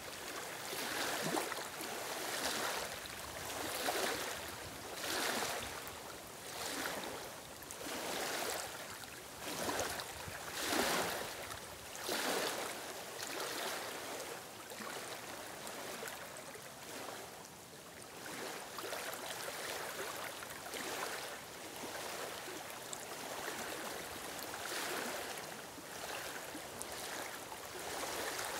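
Small waves lapping against a stony shore among reeds, washing in and draining back in regular surges about every second and a half; the surges grow gentler after about halfway.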